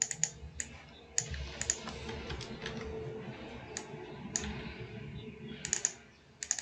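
Computer keyboard typing: a dozen or so sharp keystroke clicks at irregular intervals, in small clusters, as a line of code is edited.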